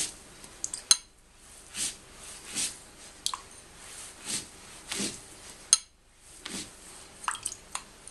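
Dry-brush strokes of a paint-loaded watercolour brush scraping across rough watercolour paper, a short swish roughly every three-quarters of a second, with two sharp clicks among them.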